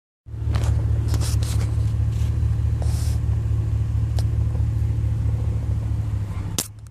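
2006 Chevrolet Silverado making the odd noise its owner calls ugly: a steady low drone with scattered sharp ticks. Near the end comes one sharp click and the sound drops off.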